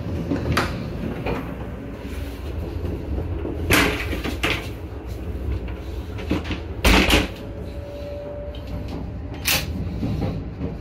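Several sharp knocks and clicks of a train toilet compartment's door and its lock lever being handled, the loudest about seven seconds in, over the steady low rumble of a 500 Series Shinkansen running.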